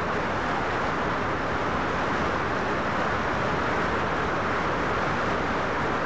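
Steady rush of a waterfall and churning white water, an even noise with no change.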